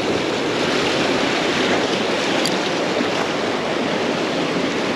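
Ocean surf washing against the shore, a steady rushing noise.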